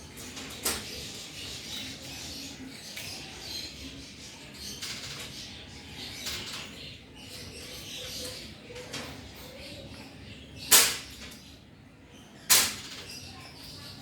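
Cat crunching dry dog-food kibble, with irregular short crunches and two louder sharp crunches or clicks near the end.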